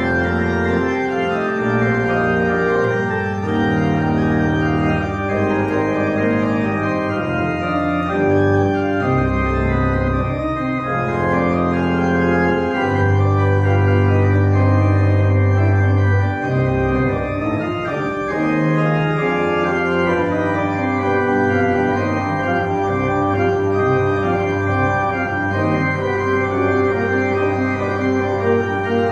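Church organ played by hand on a two-manual console: a continuous stream of held chords over a deep bass line, with the bass at its heaviest from about a third to halfway through.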